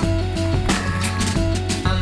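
Background music: a song with drums and a steady beat.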